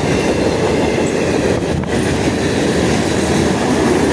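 Norfolk Southern freight train's cars rolling past at close range: steady loud noise of steel wheels on the rails.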